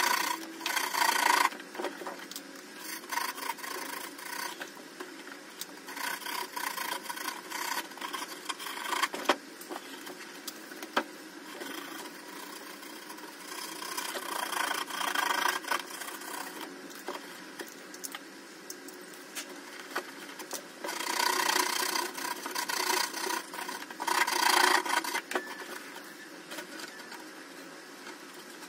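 A hand blade sawing through the wall of an expanded polystyrene (thermocol) box, making rasping, scraping strokes. The strokes come in bursts with short pauses between.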